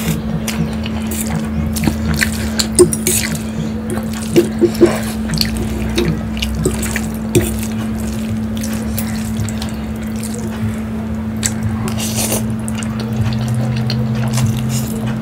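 Close-miked wet mouth sounds of eating Maggi instant noodles: slurping and chewing, with many short sharp smacks and clicks, over a steady low hum.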